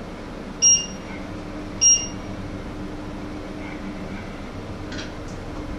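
Two short electronic beeps about a second apart, from the electric stove's controls being pressed, over a steady low hum.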